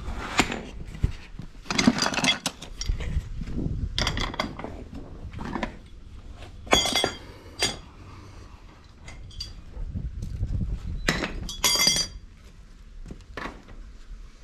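An adjustable wrench and other metal hand tools clinking and clanking against a brass hose tap and its fittings as the tap is tightened on. The sharp knocks come irregularly, two of them ringing out brightly.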